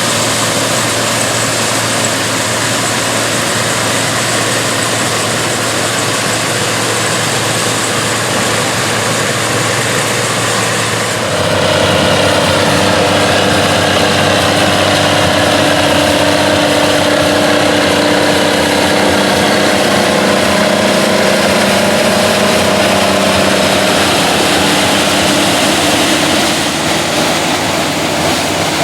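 Classic combine harvester engines running steadily while harvesting corn. About eleven seconds in, the sound changes abruptly to a louder engine with a distinct steady drone.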